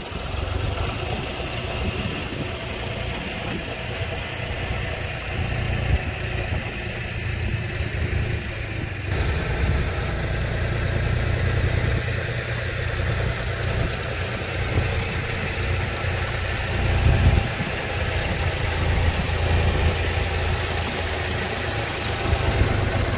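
Tractor engine idling steadily, a continuous low hum.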